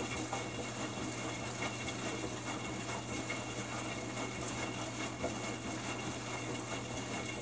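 Samsung WF45N5300AW front-load washer running, its drum tumbling with water inside: a steady motor hum under the swish and splash of the water.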